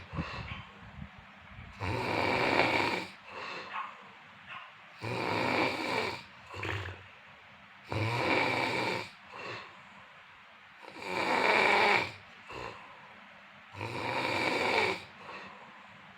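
A sleeper snoring in a steady rhythm, one rattling snore about every three seconds, each lasting about a second, with a shorter, quieter breath after several of them.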